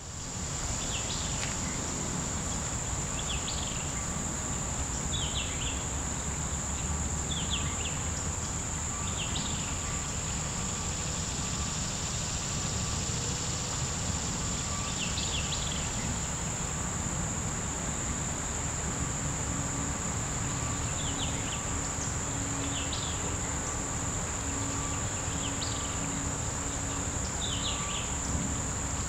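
Insects droning with one steady high-pitched note, while short chirps break in every second or two, over a low steady rushing background.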